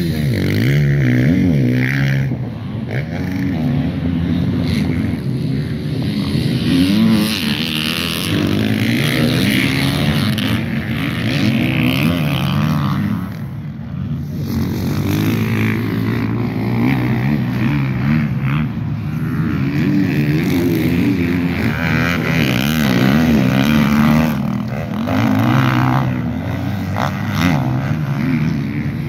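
Several motocross dirt bike engines racing, overlapping, their pitch repeatedly revving up and dropping back.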